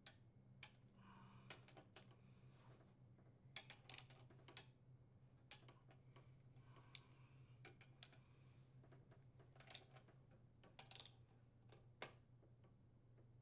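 Faint, scattered clicks of a ratchet torque wrench and 10mm socket tightening crankcase cover screws on a small engine, over a low steady hum.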